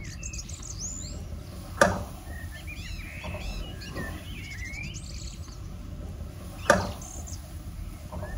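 Birds chirping steadily in the background. Two sharp knocks stand out, about two seconds in and again about five seconds later, from a metal slotted spoon striking the frying pan while the chicken is stirred.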